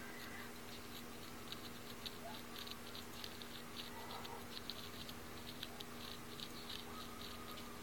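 Faint, irregular light ticking and scratching, several quick ticks a second, over a steady low hum.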